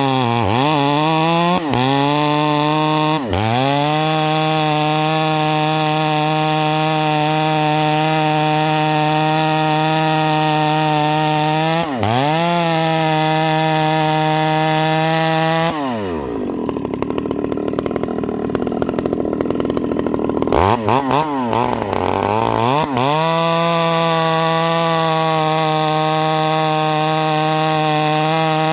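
Husqvarna 390 XP two-stroke chainsaw with a Ramhorn muffler running at full throttle, blipped off briefly a few times. About halfway through the engine speed drops and the note turns rough for about five seconds, as it would when bogging down in a cut, then it climbs back to full revs.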